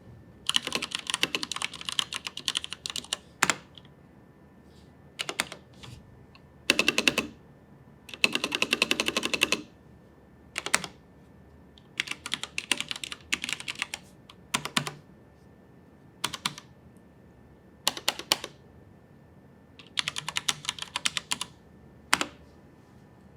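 Leopold FC980M mechanical keyboard with linear Cherry MX Red switches being typed on: fast runs of keystrokes in bursts of one to three seconds, separated by short pauses and single key presses.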